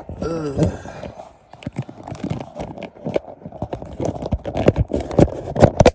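Irregular knocks, clicks and rustles of a phone camera being handled and fitted in place, many sharp taps at uneven spacing, with a short sliding pitched sound about half a second in.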